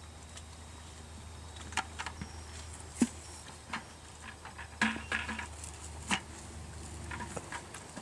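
Hand-picking grapes: irregular clicks, snips and rustles as clusters are cut from the vines and dropped into plastic buckets, with a sharp click about three seconds in and a flurry of rustling around five seconds, over a low steady hum.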